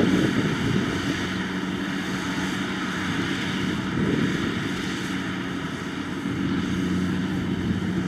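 Kubota DC70 combine harvester running steadily while it cuts and threshes rice: a constant engine drone over a broad mechanical noise.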